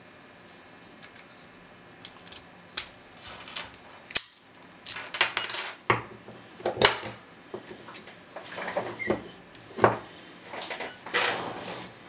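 Brass Master Lock No. 160 padlock being handled, with irregular metallic clicks, clinks and short scrapes as the key is worked in the cylinder and the shackle is moved. There is a sharp click about four seconds in, and a longer scrape near the end as a pick goes into the keyway.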